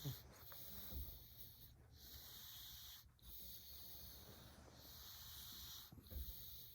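Domestic cat snoring in its sleep: a hissy snore on each breath, repeating every couple of seconds. A soft low thump comes right at the start and another near the end.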